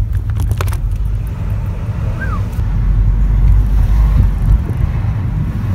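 City street noise: a loud, uneven low rumble of traffic mixed with wind buffeting the microphone, with a few clicks near the start and one short rising-then-falling chirp about two seconds in.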